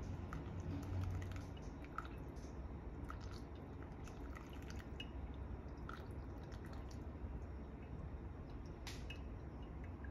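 Coffee dripping from a V60 pour-over dripper into the vessel below: scattered small drops and soft ticks at an irregular pace, with one sharper click near the end.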